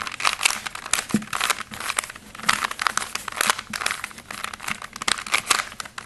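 3x3 Rubik's Cube being turned quickly by hand, a rapid irregular run of plastic clicks and clatters as its layers snap round through a repeated move sequence.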